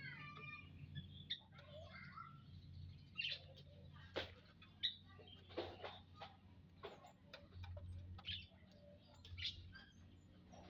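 A flock of munias in an aviary giving short, scattered chirps and calls, faint, over a low steady hum.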